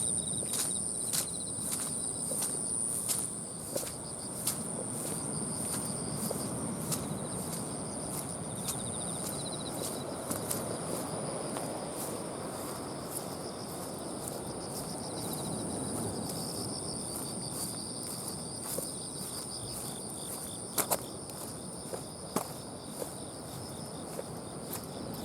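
Insects singing in a steady chorus: a continuous high shrill tone with softer trills and evenly repeating ticks, over a low even background noise. A few sharper clicks come near the end.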